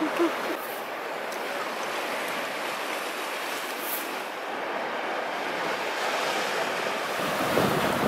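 Sea waves breaking and washing over rocks and a sandy beach, a steady hiss of surf. A deeper rumble joins near the end.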